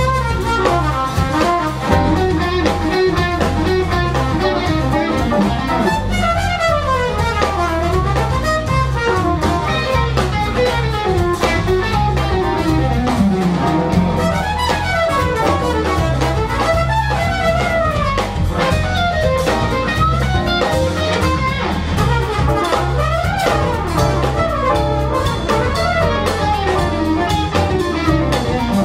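A live jazz-blues band plays: a trumpet plays melodic runs that sweep up and down over electric guitar, electric bass and a drum kit.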